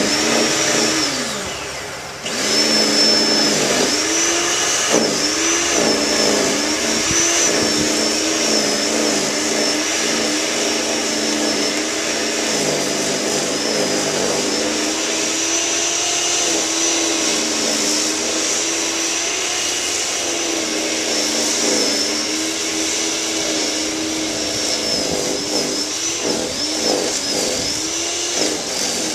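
Corded electric snow thrower's motor running with a high whine while throwing snow, its pitch dipping and recovering over and over. Near the start it winds down in pitch and loudness, then comes back up to speed about two seconds in.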